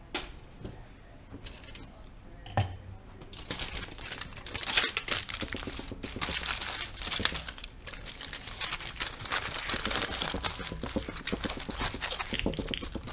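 Aluminium foil crinkling and crackling as it is folded and crimped by hand into a packet, starting about three seconds in after a few light knocks.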